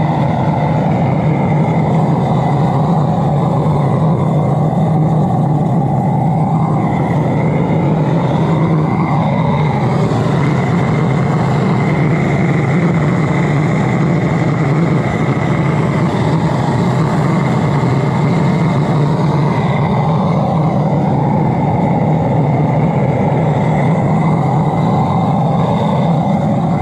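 High-velocity "Little Dragon" diesel burner firing into a small foundry furnace: a loud, steady rush of flame and air with a strong low hum, unchanging throughout.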